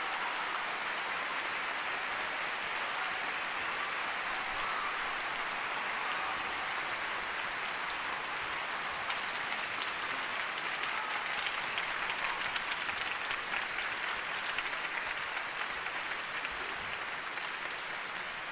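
Concert audience applauding steadily; individual claps stand out more sharply in the second half.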